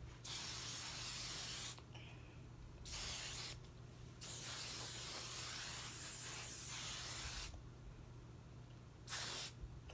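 Aerosol oil sheen spray hissing from the can in four bursts: one of about a second and a half, a short one of about half a second, a long one of about three seconds, then a short one near the end.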